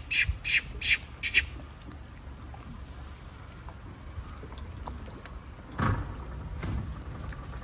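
A bird calling in a rapid series of harsh notes, about four a second, stopping about a second and a half in. A low steady rumble runs underneath, with a brief louder noise about six seconds in.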